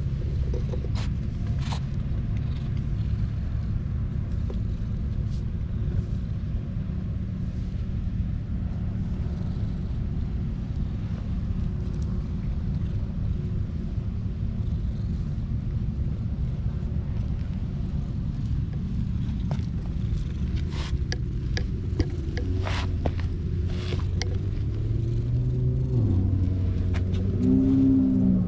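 Calico cat purring steadily and deeply while being stroked close to the microphone, with a few light rustles and pats of the hand on its fur. Near the end a louder drone with several tones comes in.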